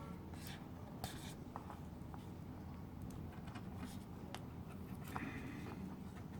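Faint rustling and scratching of paper as a sticker seal is picked and peeled off a paper wrapper, in short scattered strokes.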